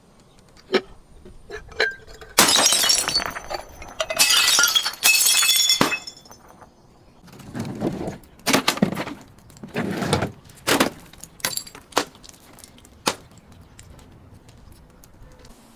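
Glass bottles shattering, with two long loud crashes and bright tinkling of shards. Duller crunching thuds follow, then a few sharp clicks.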